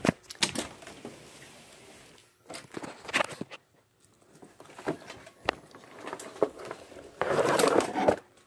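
Handling noise from a hand-held phone being carried and jostled against clothing: scattered clicks and knocks, with a longer burst of rustling about seven seconds in.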